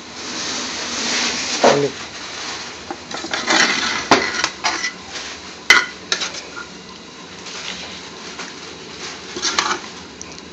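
A metal serving spoon scraping and knocking against a cooking pot and a ceramic plate as cooked spinach is dished out, with several sharp clinks, the loudest about halfway through.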